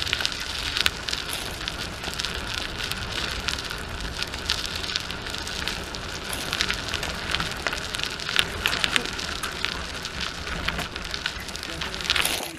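Continuous crackling noise made of many small, irregular clicks, which cuts off abruptly near the end.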